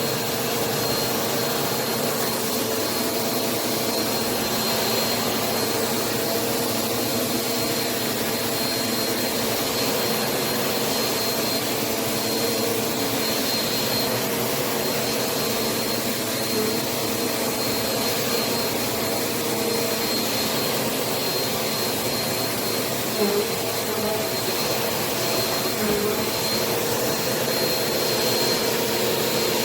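Bissell AeroSwift Turbo Compact upright vacuum running steadily: an even rush of air with a constant hum and a thin high whine.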